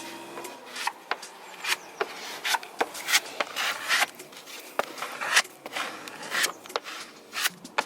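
Quick, irregular scraping and rubbing strokes of hand work on a boat hull, a few strokes a second, like filler being spread or sanded.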